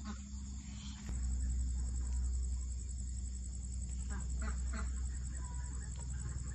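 Crickets chirping in a steady high-pitched chorus over a small wood fire burning under a clay pot, with a few crackles. A low rumble comes in about a second in.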